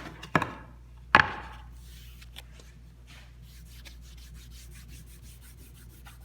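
Two sharp wooden knocks in the first second or so, then quiet, quick rubbing strokes: a rag scrubbing lacquer thinner along the edge of a wooden drawer box.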